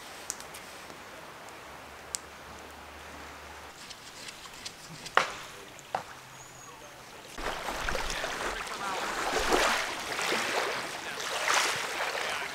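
Water lapping on a pebble shore, a wash that swells and falls, growing much louder about seven seconds in; before that only a faint background with a few sharp clicks.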